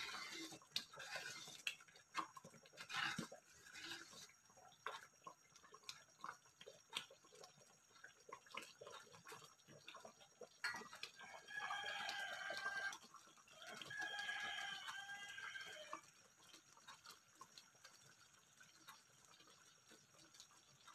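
Thick chocolate rice porridge simmering in an aluminium pan, with small irregular pops and spoon scrapes throughout. A rooster crows twice in the background about halfway through. These two calls are the loudest sounds.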